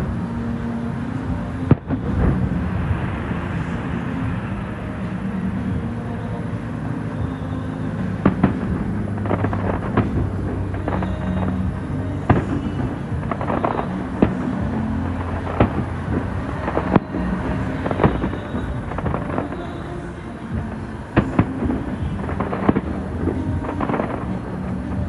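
Fireworks display: aerial shells bursting with sharp bangs at irregular intervals, often several in quick succession, over a steady low hum.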